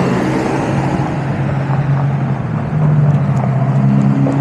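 Road traffic: a steady low vehicle hum over broad road noise, with a second, higher tone joining near the end.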